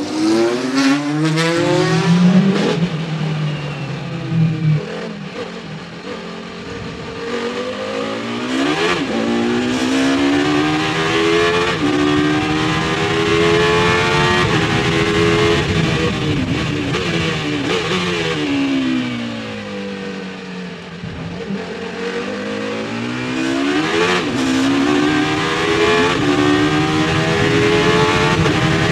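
The Courage C60's naturally aspirated 4-litre V10 racing engine, heard from the cockpit, accelerating hard through the gears with quick upshifts. Twice the pitch falls away as it slows for a corner with downshifts, then climbs again under full throttle.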